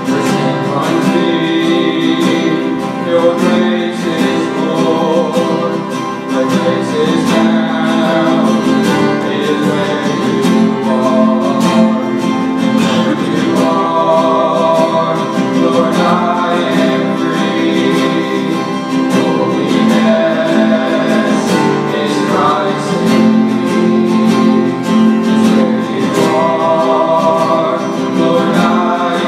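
Two acoustic guitars strummed while men sing a worship song.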